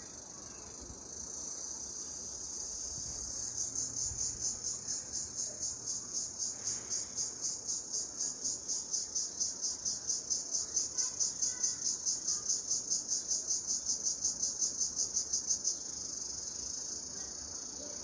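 Insect song: a steady high-pitched hiss, with a pulsing insect call of about four pulses a second over it. The call starts a few seconds in and stops a couple of seconds before the end.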